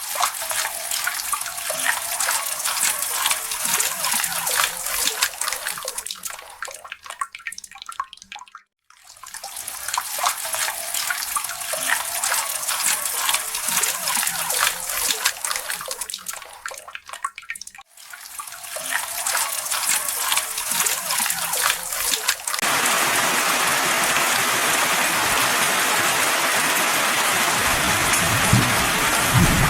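Storm water noise: rain and running water, splashing and crackling, in three stretches with sudden breaks between them. Near the end it becomes a steadier, even hiss of heavy rain.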